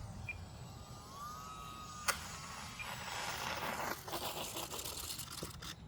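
Electric motor of an E-flite UMX Yak 54 180 micro RC plane whining, its pitch rising and falling with the throttle, for the first couple of seconds. A sharp click follows, then about three seconds of scratchy, crackling noise.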